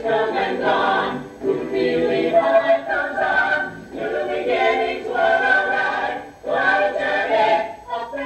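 A stage musical's cast singing together in chorus, in sung phrases with held notes and short breaks between them.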